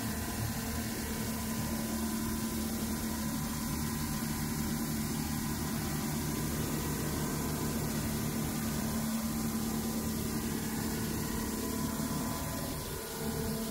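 A boat's engine running steadily, a constant drone with hiss over it, dipping briefly near the end.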